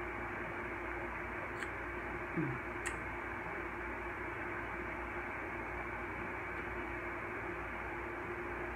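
Room air conditioner running, a steady hiss with a low hum under it. Two faint clicks come about one and a half and three seconds in.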